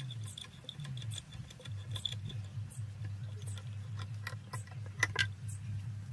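Light, irregular metal clicks and ticks of woodworking clamps being fitted and screwed tight onto the ends of a wooden door stile, with two sharper clicks about five seconds in, over a steady low hum.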